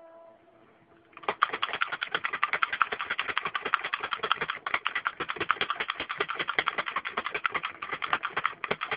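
Manual pick gun snapping rapidly in a pin-tumbler lock cylinder under light tension from a circular tension wrench, about ten sharp clicks a second, starting about a second in.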